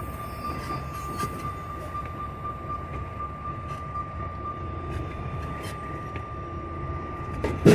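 Semi-truck's diesel engine running at low speed, heard from inside the cab, while the tractor backs slowly under a loaded trailer. A steady high thin tone runs along with it, and a sudden loud noise comes right at the end.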